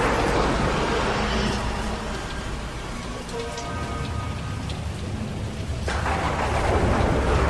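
Thunderstorm sound effect: steady rain with thunder rolling in twice, once at the start and again about six seconds in.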